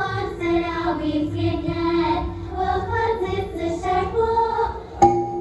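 Live music: a high voice sings a wandering, wordless-sounding melody over a steady held low note. Near the end, a sharp struck note rings out, the first of a regular run of strikes.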